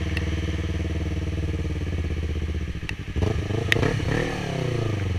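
Yamaha R3's parallel-twin engine running at a steady pitch. About three seconds in, the sound briefly dips, then rises and falls in pitch, with a couple of sharp clicks.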